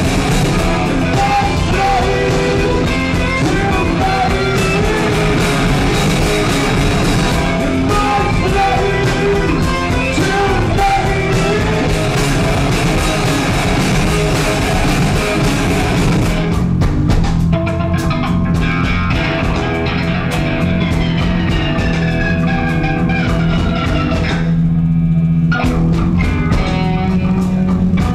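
Live rock band playing: distorted electric guitars, bass guitar and drum kit, with a voice singing in the first half. About sixteen seconds in the sound thins out to guitars and cymbals with sliding guitar notes, and near the end the highs drop out briefly, leaving only the low bass ringing.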